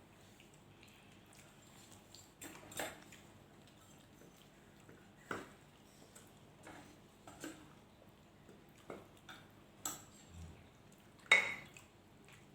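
Eating at a plate: scattered clinks and taps against the dish, one every second or two, with the loudest clink near the end.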